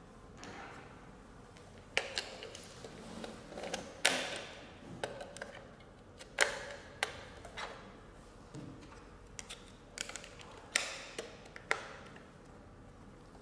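Batteries and the plastic battery cover of a face coin bank being fitted: irregular sharp plastic clicks and knocks with some rubbing and scraping between them.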